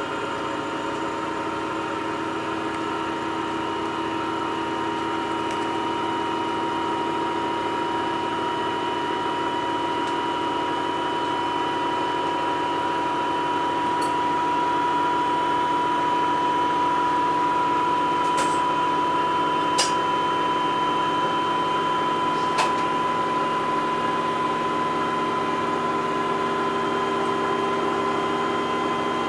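Samsung washing machine running with a steady motor whine that creeps slightly up in pitch and loudness as the drum turns. A few light clicks or knocks come about halfway through.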